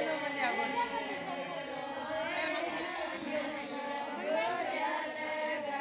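Group of women singing a Rajasthani folk song (ladies' geet) in long, drawn-out melodic lines, with crowd chatter around them.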